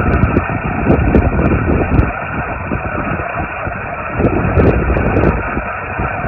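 Static and band noise from a Yaesu FT-891 HF transceiver's speaker as its tuning knob is turned down through the 40-meter band. The sound is cut off sharply above the receiver's narrow voice filter, so it sounds thin and muffled.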